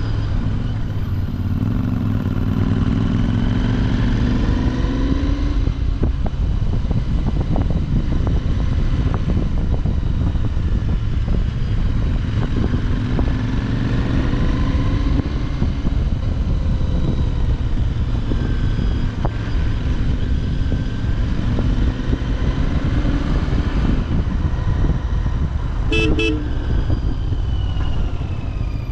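Royal Enfield Continental GT650's parallel-twin engine through its stock exhaust, on the move, its pitch rising and falling several times as it revs up and changes gear. A short horn toot near the end.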